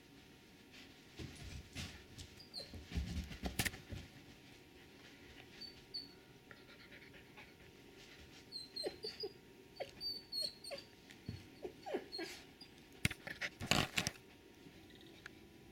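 A Doberman and a wolf pup at play: short high-pitched whimpers and squeaks come scattered through, over scuffling and sharp knocks, with the loudest knocks near the end as an animal bumps against the camera.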